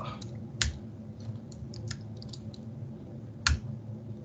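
Typing on a computer keyboard: a scatter of light key clicks, with two sharper, louder key strikes, one just over half a second in and one about three and a half seconds in.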